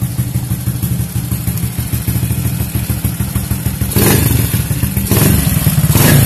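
Honda EX5 Dream's single-cylinder four-stroke engine, modified with a 56 mm bore, idling steadily through its chrome exhaust. It is blipped twice, about four and five seconds in, with short rises in revs.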